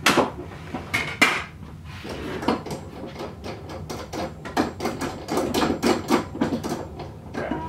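Knocks and clatter of tools and wood being shifted and set down on a workbench: two sharp knocks at the start and about a second in, then a run of irregular knocking and rattling.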